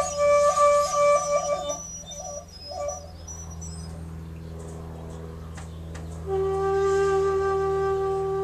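Shakuhachi, a Japanese bamboo end-blown flute, played solo: a quick run of repeated, flickering ornamented notes, a softer stretch, then a long held lower note starting about six seconds in.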